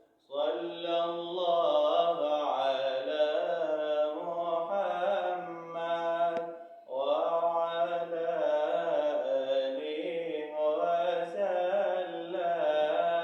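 A man singing an Arabic nasheed solo and unaccompanied, with no instruments or sound effects, in two long drawn-out phrases with a short breath about seven seconds in.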